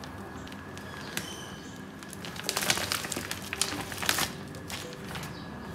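Plastic packet of filo pastry sheets crinkling as it is handled, with short bursts of rustling about halfway through and again near the end.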